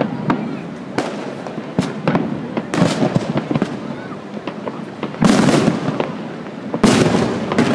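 Fireworks going off: a steady run of sharp cracks and pops, with two bigger bangs that rumble on for about half a second, the first about five seconds in and the second nearly two seconds later.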